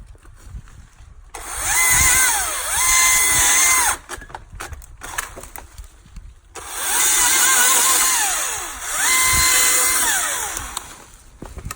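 Husqvarna battery-powered electric chainsaw run twice, each time whining up to full speed, holding there with a brief dip in the middle, then winding down. It is a quiet electric whine with chain noise and no engine exhaust note.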